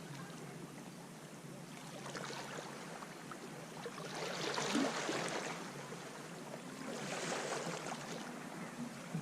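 Small waves washing onto a sand beach, surging in three times, the strongest about halfway through.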